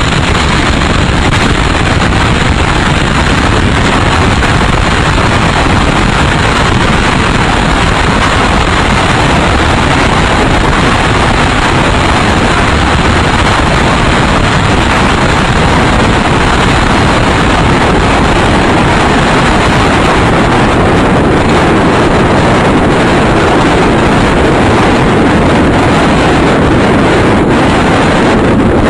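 Tornado wind roaring over a tornado probe's microphone: a loud, steady rush of noise with no break.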